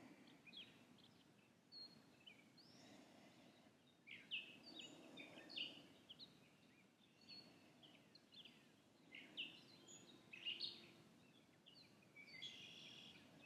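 Faint birdsong: many short chirps from birds, scattered throughout, over a faint low background hum of outdoor noise.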